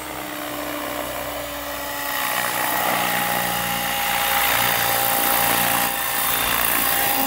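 Goblin 500 electric RC helicopter's motor and rotor whining steadily, louder from about two seconds in and then holding level.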